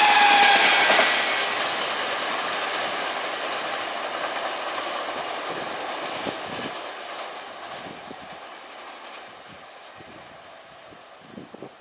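Taiwan Railways E1000 electric-locomotive train passing at speed, loud at first with a slightly falling whine. The rumble of its wheels on the rails then fades steadily as the train moves away.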